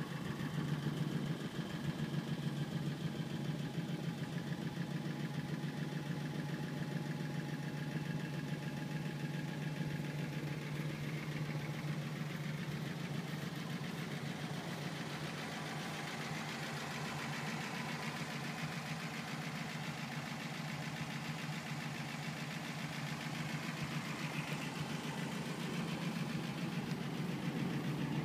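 1955 Ford Crown Victoria's V8 engine idling steadily.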